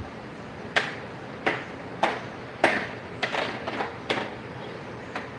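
A run of about eight short, sharp knocks, roughly one every half second, over a steady low hiss.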